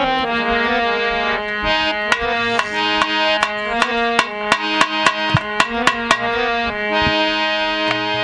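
Instrumental bhajan introduction: a melody of held notes stepping up and down on a harmonium-type reed instrument, with hand-drum strikes several times a second.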